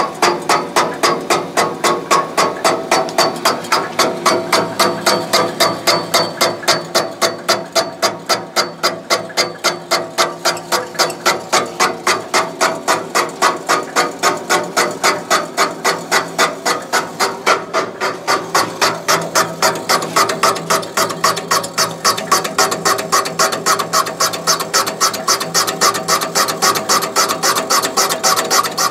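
Sunnen VGS-20 valve seat machine spinning a spring-loaded chamber-unshrouding cutter in a cast-iron 454 big-block Chevy cylinder head. It gives a steady machine hum with an even rhythmic clicking, about four clicks a second. The cutter is being brought down until it touches all the way around the chamber, before its cutting depth is set.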